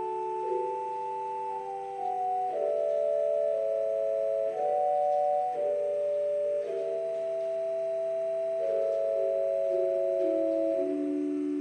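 Organ playing a slow, quiet prelude in held chords, each note sustained evenly until the next chord change.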